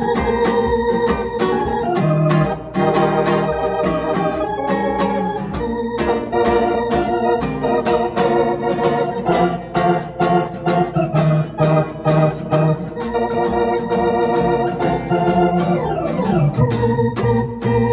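Organ and guitar jamming a groovy blues instrumental, with held organ chords and quick repeated note attacks. About sixteen seconds in a note slides steeply down in pitch.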